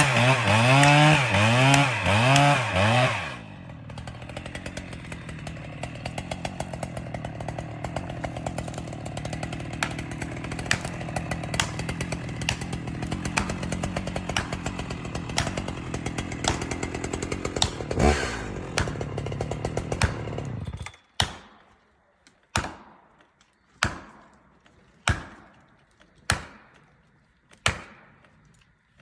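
A chainsaw revving hard in rising and falling bursts, then running more quietly and steadily while cutting, before cutting off suddenly. Then comes a series of about seven sharp knocks, roughly one every second, each ringing briefly.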